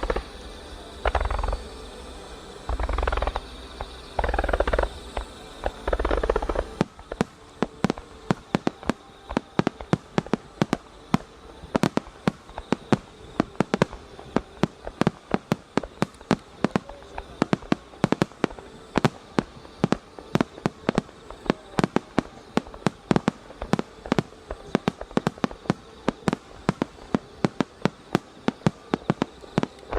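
Aerial fireworks: several heavy shell bursts with deep booms in the first six seconds, then from about seven seconds in a dense crackling of many small sharp pops, several a second, that goes on throughout.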